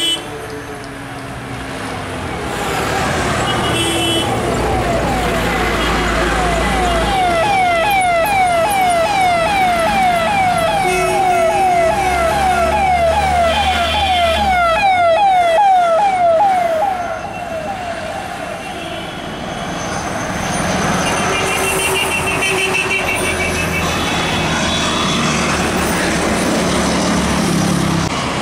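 Road traffic with an emergency vehicle siren wailing in a fast repeating yelp, about three sweeps a second. It grows louder, then cuts out a little past halfway, leaving engine and tyre noise from passing vehicles.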